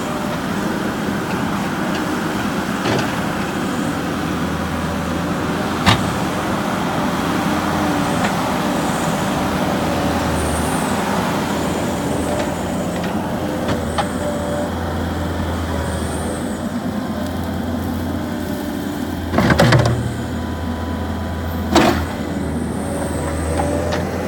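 New Holland skid steer engine running steadily, its speed wavering a little, with several sharp clanks and knocks; the loudest is a rough clatter about twenty seconds in.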